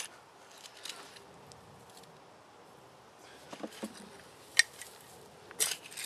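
Garden fork working dry soil while potatoes are dug up: a few scattered scrapes and sharp clicks of the metal tines, the loudest about two-thirds of the way through.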